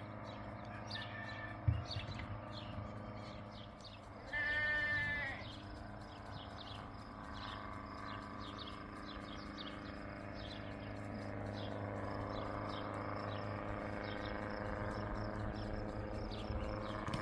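A goat bleats once, loudly, for about a second, about four seconds in. Under it runs the steady low drone of a helicopter landing nearby, which slowly grows louder through the second half.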